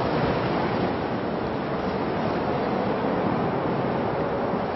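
Steady rushing noise of wind and water, with wind buffeting the microphone.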